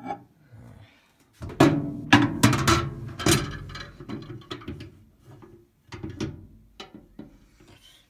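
Knocks and clatters from handling the microwave's glass turntable tray on a stone countertop, a dense run of hard knocks about one and a half to three and a half seconds in, then lighter scattered clicks.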